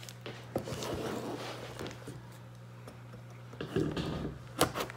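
A hatchet blade slitting the packing tape on a small cardboard box: light scrapes and taps of the box being handled, busier in the second half, with a few sharp clicks near the end. A steady low hum runs underneath.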